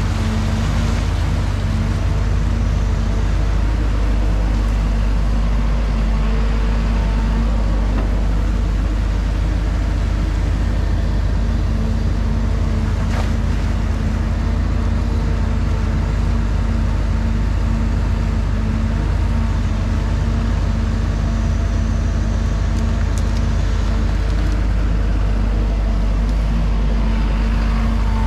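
Cat excavator's diesel engine running at a steady speed, a constant low hum with a steady pitched drone.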